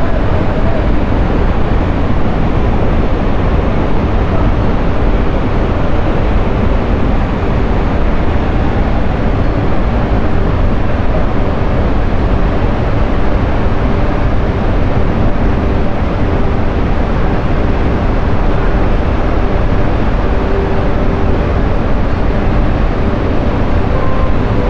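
Steady, low rushing roar of Jog Falls on the Sharavati River in heavy flood, the water plunging into the gorge without let-up.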